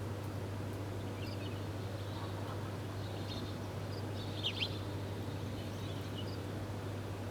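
Wild birds chirping: scattered short high chirps, the loudest a quick cluster of notes about four and a half seconds in, over a steady low hum.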